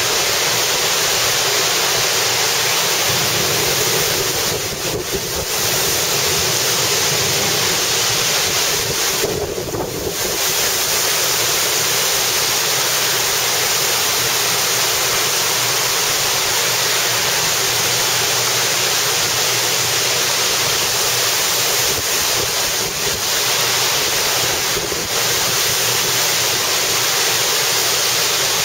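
Heavy wind-driven rain falling in a steady loud rush, with wind buffeting the microphone. The rush eases briefly twice, about five and ten seconds in.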